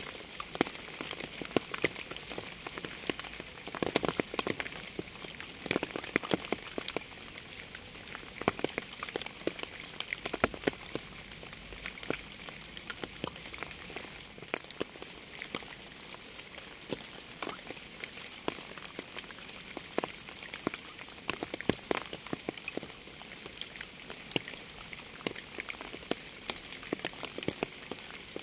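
Steady rain, with many irregular drops striking a surface close by.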